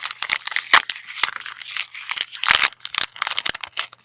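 Irregular crinkling and rustling as trading cards are handled and sorted.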